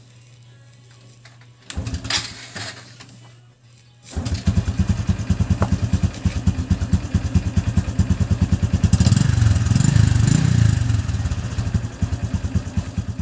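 Honda RS 125 Fi single-cylinder motorcycle engine kick-started from cold. The first try turns it over for a second or two without catching. It catches about four seconds in and settles into a fast, even idle, with a brief rise in engine speed in the middle.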